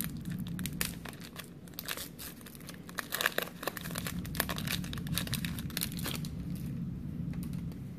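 A Pokémon trading-card booster pack's foil wrapper crinkling and tearing as it is ripped open by hand, a dense run of crackles in the middle seconds.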